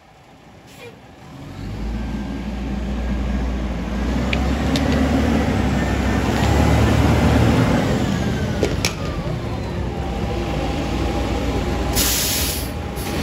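Pierce fire engine's diesel engine pulling past at close range, building up, then easing off as it moves away. A short burst of air hiss near the end, typical of air brakes.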